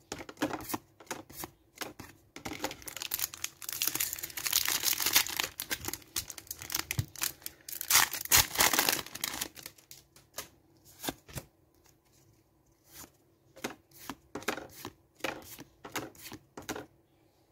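Foil wrapper of a Pokémon trading card booster pack being torn open and crinkled for several seconds, with sharp clicks of cards being handled and flicked one by one before it and, more sparsely, after it.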